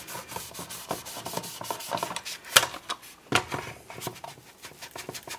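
Kitchen towel rubbing and wiping over the plastic body of a model locomotive, with irregular small clicks and taps as the model is turned in the hands. There is a sharper knock about two and a half seconds in and another soon after.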